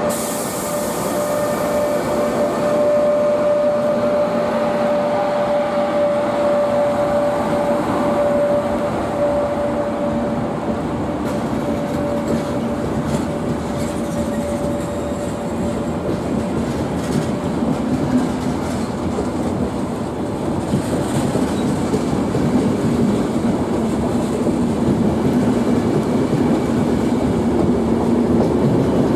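Trenitalia electric locomotive passing close by at low speed with a steady whine, which fades over about the first dozen seconds. A long rake of passenger coaches follows, rolling past with a continuous rumble and wheels clicking over the rail joints.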